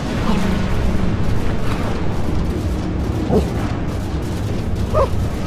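Heavily distorted, effects-processed audio: a dense, bass-heavy rumbling noise, with short chirp-like glides about three and five seconds in.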